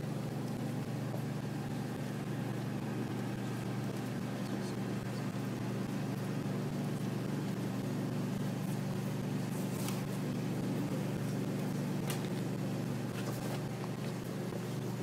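A steady low engine hum, like a vehicle idling, with a few faint clicks about two-thirds of the way through and no voices.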